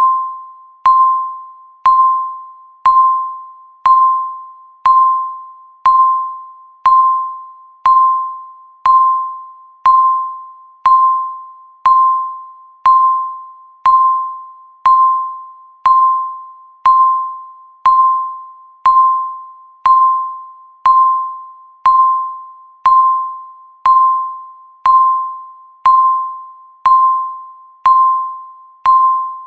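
Electronic countdown-timer beep, once every second: a single tone around 1 kHz that starts sharply and fades away before the next, each beep marking one second counted down.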